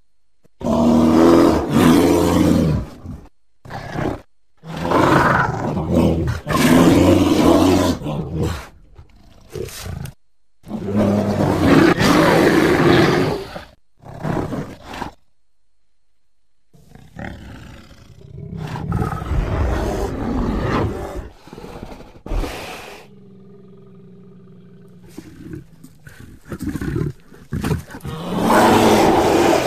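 American black bear growling in a series of loud, deep bursts of one to four seconds, with short silences between. Midway there is a quieter, rougher stretch and a faint drawn-out tone, then one more loud growl near the end.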